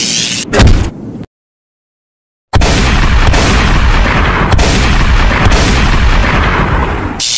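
Animated-fight sound effects: a loud boom about half a second in, then a second of total silence, then a long, loud, dense rumble with a few sharp hits through it.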